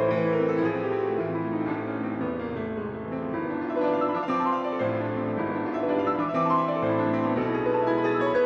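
Piano music, slow sustained notes and chords that overlap and change about once a second.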